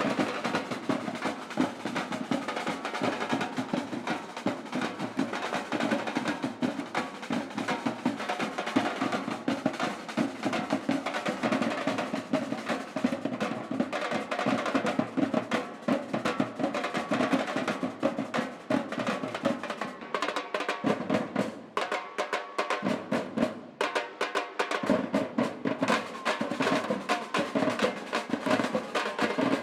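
Samba batucada percussion ensemble playing a dense drum groove of snares and other drums. About two-thirds of the way through, the low drums drop out for a couple of seconds, then come back in.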